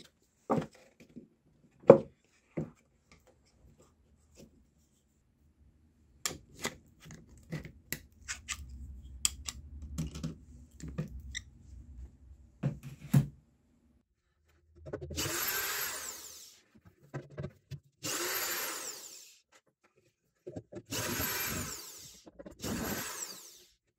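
Clicks and knocks from a screwdriver and hands working a tweeter's mounting screws loose and lifting the tweeter out of a wooden speaker cabinet. In the second half a small power tool runs in four short bursts, each with a whine that rises and falls.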